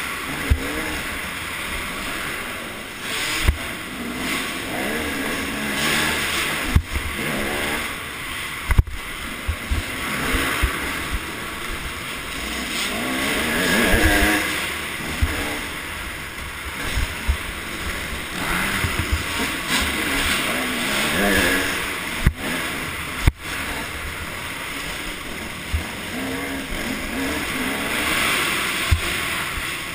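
Motocross bike engine revving up and falling back again and again as it is ridden hard round a dirt track, heard from the rider's helmet camera with wind noise on the microphone. A few sharp knocks stand out.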